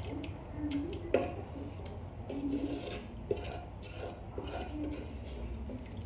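Wooden spoon scraping thick fried masala out of a metal pressure cooker into a pot of haleem, with a few sharp knocks of the spoon against the cooker, the loudest about a second in and again past three seconds.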